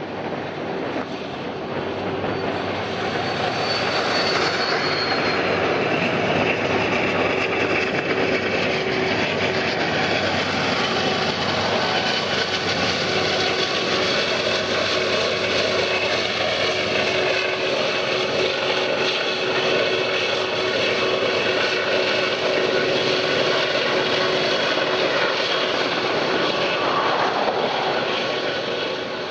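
Union Pacific 844 steam excursion train passing close by: a steady roar of the passenger cars' wheels on the rails that swells over the first few seconds as the train arrives, then holds as the cars roll past.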